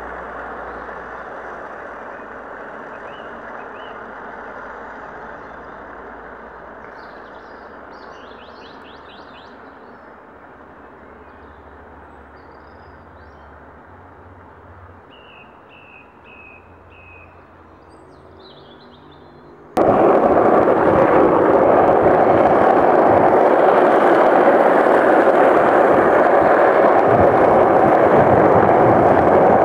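Skateboard wheels rolling on asphalt, fading away, with birds chirping. About twenty seconds in it turns suddenly loud: wind rushing over a microphone and the rumble of wheels on asphalt from a camera riding downhill at speed alongside skaters.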